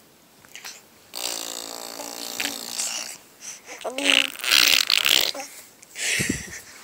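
Mouth fart sounds: lips blown into raspberries, traded between a baby and his mother. There is a buzzing one about two seconds long, a louder noisy one about four seconds in, and a short one near the end.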